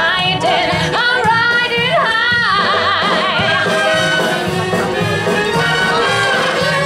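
A woman singing with a wide vibrato, backed by a full symphony orchestra with brass. Her voice stands out most in the first couple of seconds, after which the orchestra's held chords come forward.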